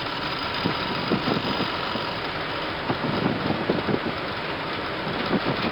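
Airbus A319 cockpit during the landing rollout: a steady rushing noise of the jet engines in reverse thrust and the wheels running on the runway as the airliner decelerates after touchdown, with a few light bumps.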